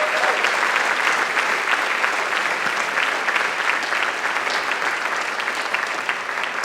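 Theatre audience applauding, a dense patter of many hands clapping, easing off slightly near the end.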